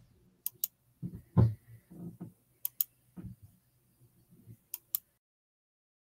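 Sharp clicks in three quick pairs, with soft low knocks and bumps between them. A little after five seconds the sound cuts off abruptly to dead silence.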